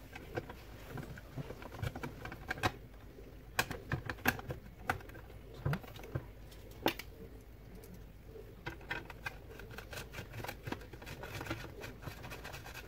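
Irregular small plastic clicks and light taps as a cover panel and a connector plug are pressed back into place on a Saeco Xsmall espresso machine's housing.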